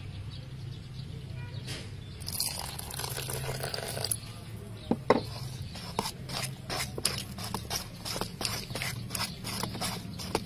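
Metal spoon stirring a thick, wet batter in a bowl: squelching with short scraping clicks of the spoon against the bowl, coming faster in the second half, over a steady low hum.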